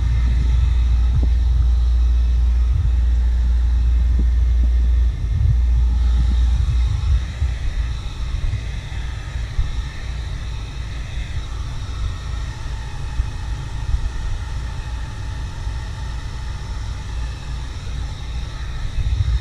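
Heavy low rumble of wind on the microphone, strongest for the first five seconds and gustier after. Under it, the steady whine of a handheld heat gun drying soapy water off a kart body's graphics.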